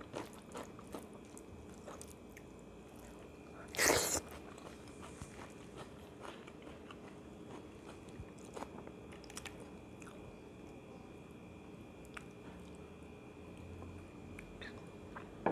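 Eating sounds from a man eating chicken curry and rice by hand: soft chewing and small clicks of hand and food, with one short, much louder noise about four seconds in.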